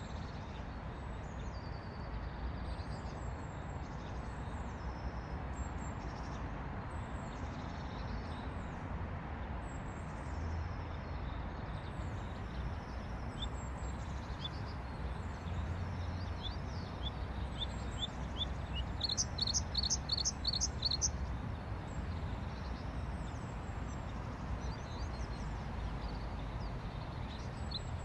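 Bluethroat singing: a varied run of high, repeated chirps and whistles, with a string of short ticks and a rapid rattling trill about two-thirds of the way through. A steady low rumble of background noise runs underneath.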